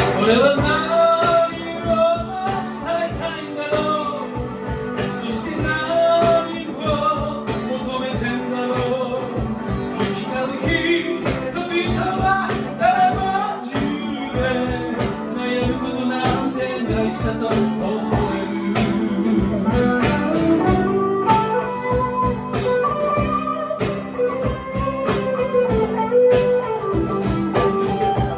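Live song with guitar: a steady strummed rhythm under a wavering melody line, an instrumental break between sung verses.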